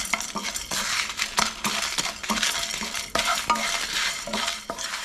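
Whole spices (coriander seeds, chana and urad dal, fennel, peppercorns, cumin, dried red chillies) being dry-roasted in a kadai and stirred: a spoon scrapes and knocks on the pan with irregular clicks as the seeds rattle, over a faint sizzle.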